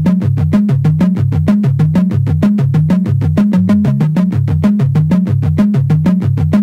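Electronic background music with a synthesizer bass line over a fast, steady beat.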